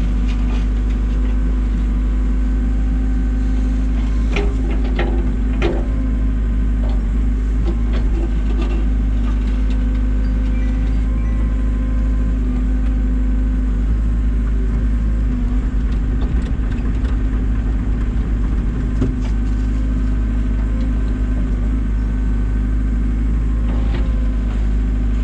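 Komatsu excavator's diesel engine running at a steady, even pitch, with a few short knocks and clicks from the machine about four to six seconds in and again near the end.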